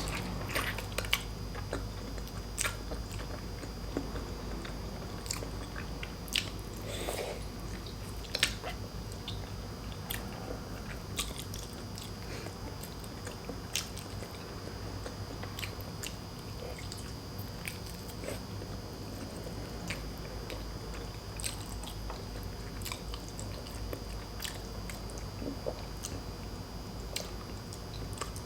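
Close-miked chewing and biting of food, with scattered sharp clicks and mouth smacks, over a faint steady high tone.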